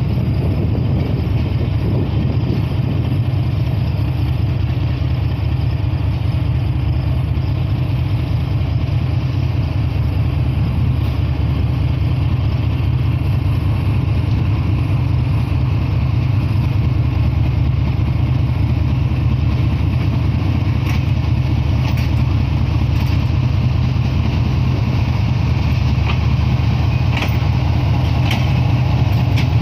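GEU40 diesel-electric locomotive's engine running with a steady low throb as it pulls away and draws slowly nearer, growing a little louder. A few sharp clicks come in the last third.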